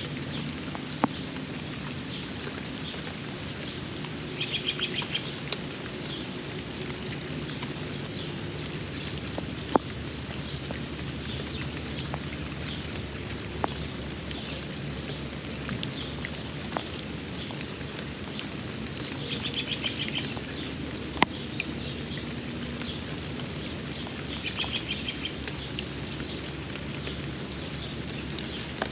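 Steady rain with scattered sharp drip ticks. Over it a songbird sings a fast trilled phrase of rapid repeated high notes, about a second long, three times: about five seconds in and twice in the last third.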